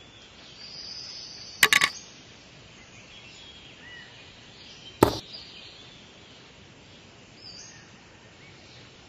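Sharp clicks and knocks of light craft pieces being handled and set down on a small popsicle-stick model trailer: a quick cluster of three about one and a half seconds in, then a single knock about five seconds in. Faint bird chirps run in the background.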